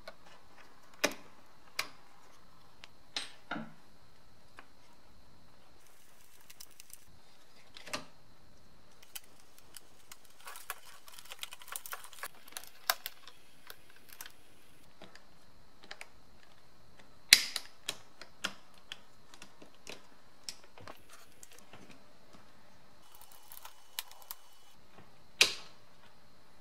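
Scattered clicks, taps and light knocks of hard plastic as the BMW E30 heater control panel's levers, cable clips and housing are handled and taken apart. The clicks come at irregular times, with a quick run of small ones around the middle and the sharpest snaps about two-thirds of the way through and again near the end.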